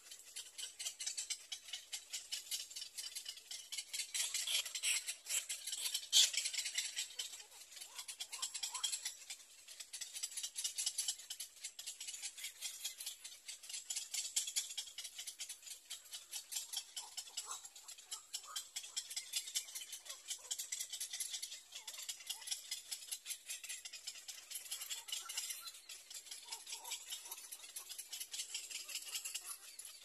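A steady, rapid rattle of short high-pitched clicks, about four or five a second, with a few faint calls mixed in.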